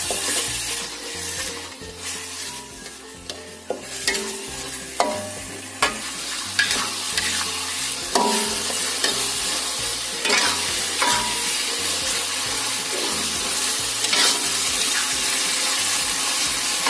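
Ground spice paste sizzling in hot oil in an aluminium wok, stirred and scraped with a metal spatula that clicks and knocks against the pan now and then. The sizzle is thinner for the first few seconds and fuller from about four seconds in.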